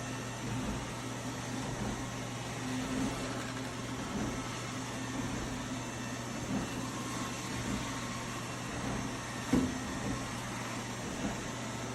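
Robot vacuum running with a steady motor hum and low drone, with a few light knocks, the sharpest about nine and a half seconds in.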